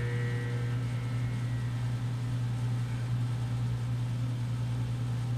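Steady low hum with a faint hiss, unchanging throughout; the human centrifuge is still at rest and not yet spinning.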